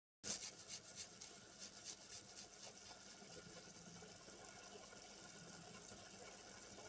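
Kitchen sounds: a quick run of light taps and clicks over the first few seconds, then a steady watery hiss of liquid.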